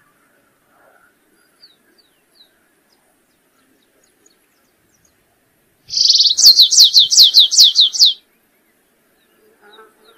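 Stripe-tailed yellow finch (canário-rasteiro) singing. Past the middle comes one loud two-second phrase: a buzzy opening note, then a quick run of about ten down-slurred whistles, about five a second. A few faint short chirps come before and after it.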